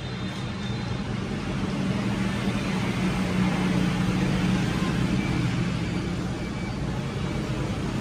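Steady low rumble of background road traffic, growing louder around the middle and then easing off.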